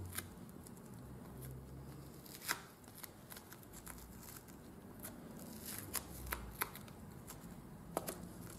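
Faint rustling and a handful of light clicks and taps from hands folding and pressing leather around a padding strip on a workbench board.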